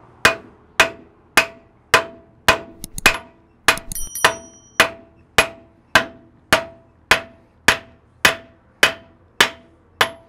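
Copper-faced hammer striking a nut threaded backwards onto the end of a Land Cruiser 200's CV (Birfield) joint shaft, driving the shaft out through the wheel hub. The blows come steadily, a little under two a second, about eighteen in all, each with a short metallic ring, with a few lighter taps about a third of the way through.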